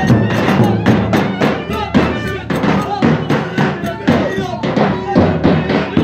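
Live Turkish wedding dance music for köçek dancing: drums and hand percussion keep a quick, steady beat under a melodic line.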